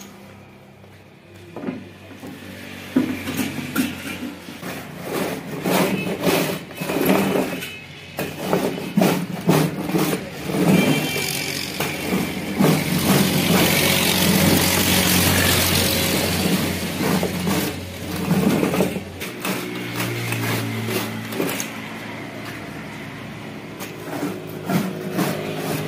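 A crisp slab of puffed rice set in jaggery crackling and crunching as a hand-pushed roller with disc blades cuts it into bars. An engine hums steadily underneath, loudest about halfway through.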